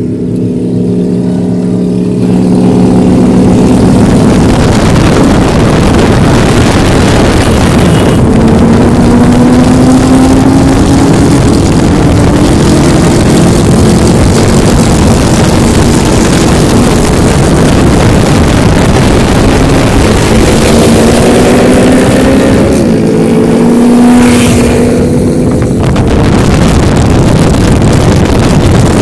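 Motorcycle engines running alongside at road speed under a loud rush of wind and road noise, revving up twice with a rising pitch, about a third of the way in and again later.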